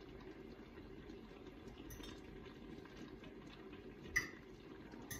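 Fork working at cooked chicken breast on a plate, shredding it: faint scrapes and ticks, with one sharp clink of the fork on the plate about four seconds in, over a steady low background hum.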